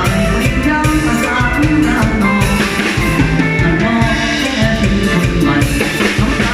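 Live band playing a song through a PA sound system, with a steady drum-kit beat under a melodic lead.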